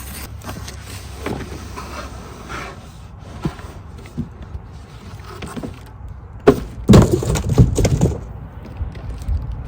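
Cardboard packaging being handled and opened: scraping and light knocks, then a burst of loud knocks and clatter starting about six and a half seconds in.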